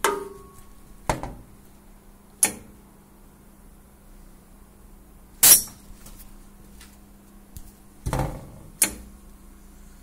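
Sharp metal clanks and knocks from the red sheet-metal guard of a mullion end-milling machine being handled and lifted open, the loudest about five and a half seconds in, over a faint steady hum.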